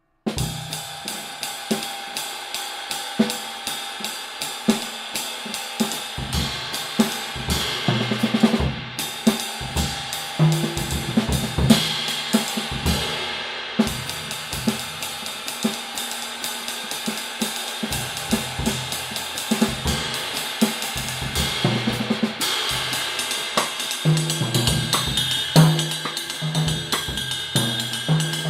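Ottaviano 22-inch lathed cymbal, 2470 grams, played in a drum-kit groove: steady cymbal strokes ringing over bass drum and snare beats. The cymbal wash briefly cuts out twice.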